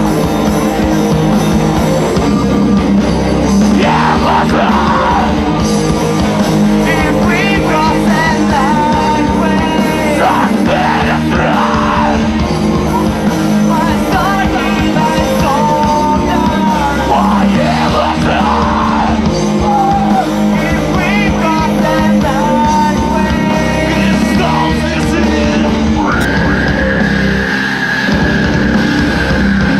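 Rock band playing live and loud, with distorted guitars, drums and vocals. A high note is held through the last few seconds.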